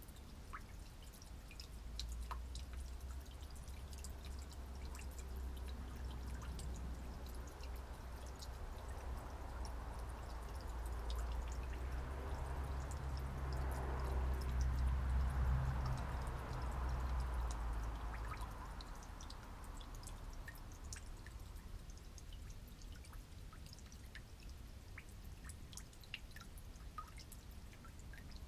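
Very old gasoline dripping and trickling from a broken fuel valve on an old generator into a drain pan already holding fuel, with scattered small drips. A low hum swells toward the middle and fades out about two-thirds of the way through.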